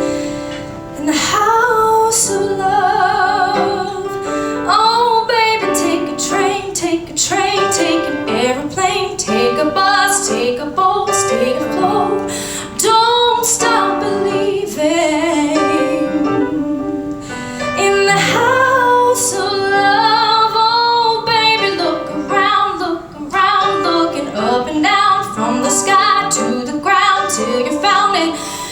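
A woman singing a song live with instrumental accompaniment, with wavering vibrato on her held notes.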